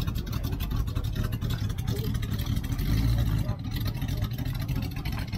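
Engine of a rat-rod pickup running steadily as it creeps along at walking pace, a low rumbling exhaust note, with faint crowd voices.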